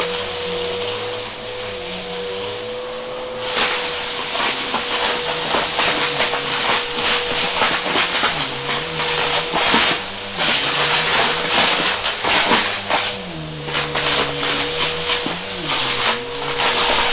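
Bissell upright vacuum cleaner running on carpet with a steady motor whine, crackling and rattling as it sucks up sandy dirt and grit; the crackling starts a few seconds in and keeps up as it passes over the pile.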